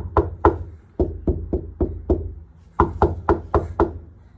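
A fist knocking repeatedly on a Toyota Hilux's transmission tunnel and floor pan lined with Car Builders sound-deadening mat, about three to four knocks a second with a short pause in the middle. The deadened steel gives a thuddy knock instead of a tinny ring.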